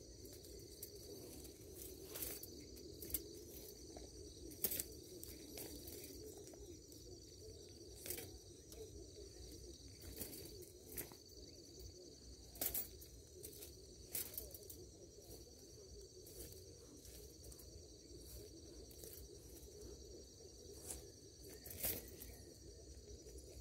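Insects trilling steadily in the background, with scattered faint clicks and rustles as a wire cage trap holding a live rat is handled in the grass.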